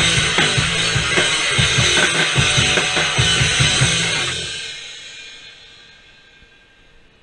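Live punk rock band with a loud drum kit playing fast, driving beats with crashing cymbals, ending about four seconds in; the cymbals and guitars then ring out and fade away.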